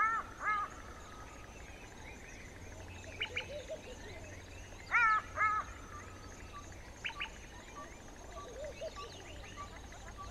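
Wild birds calling in the bush. Twice comes a loud call of two or three quick, ringing notes, about five seconds apart, among scattered short chirps and a few lower warbled notes. A faint steady high insect buzz runs underneath.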